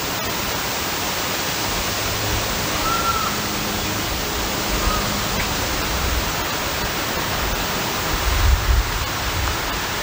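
Corded circular saw running steadily as it cuts into a 4x4 deck post, notching it to half its thickness for a corner railing post.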